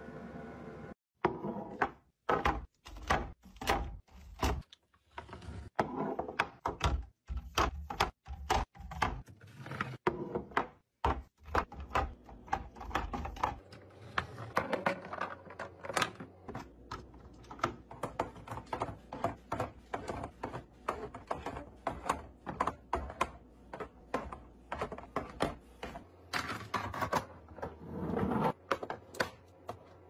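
Many quick clicks, taps and knocks of small things being handled and set down, as in restocking and organizing. The knocks are sharper and more spread out in the first dozen seconds, then turn into a denser, lighter clatter.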